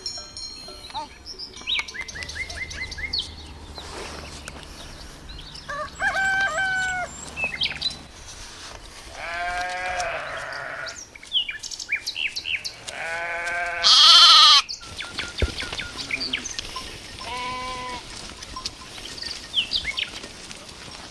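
Sheep bleating four times, one call long and drawn out, over small birds chirping throughout. About two-thirds of the way in, right after a bleat, a brief loud hiss is the loudest sound.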